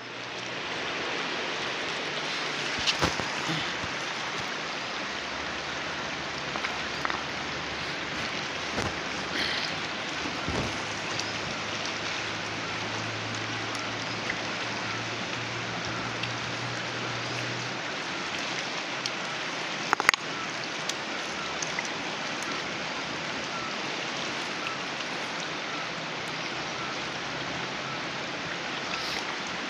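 Steady rush of a mountain river running over rocks, with a few scattered sharp clicks and knocks, the loudest about twenty seconds in.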